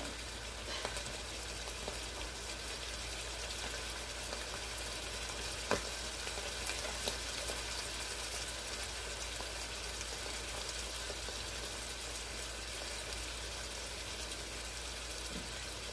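Food sizzling steadily in oil in a frying pan on the stove, with a light click about six seconds in and another a second later.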